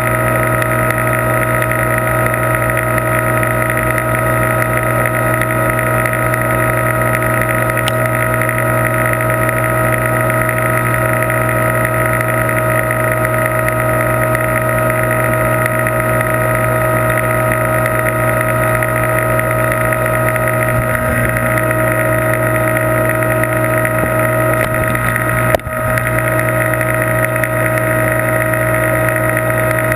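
Aquarium pump humming steadily, a constant drone with a low hum and several steady higher tones, dipping briefly about 25 seconds in.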